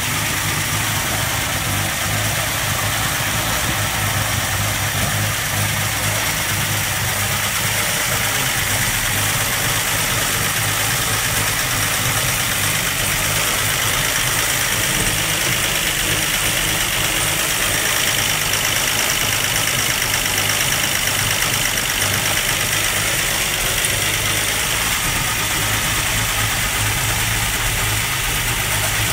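Armstrong Siddeley Sapphire 346 straight-six engine idling steadily on a test stand.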